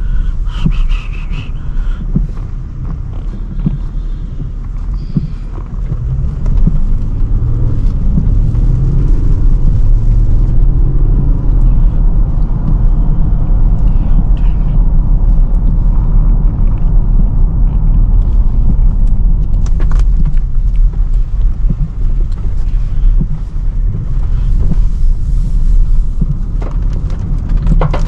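Range Rover Sport on the move: a loud, steady low rumble of engine and road noise, with the engine note rising and falling about a third of the way in, and a few sharp clicks.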